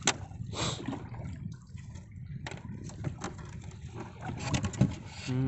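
Fish being handled in a plastic crate, with the fishing line tangled around them: scattered knocks, clicks and a brief rustle over a steady low rumble.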